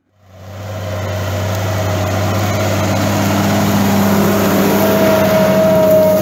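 Fendt Favorit 711 tractor's six-cylinder diesel engine running steadily under ploughing load. It fades in just after the start, with a high whine on top that grows stronger near the end.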